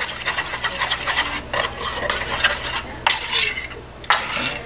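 A whisk stirring a yogurt-and-buttermilk mixture in a stainless steel bowl, with the wires scraping and clinking against the metal. The strokes come fast for about the first second and a half, then break into a few separate short strokes. The buttermilk is being mixed in to thin the batter.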